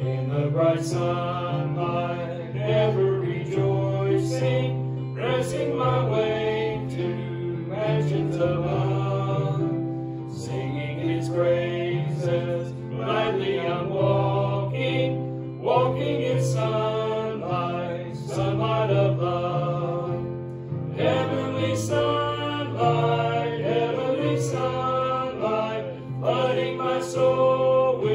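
Church congregation singing a hymn together, with a steady instrumental accompaniment holding low notes underneath.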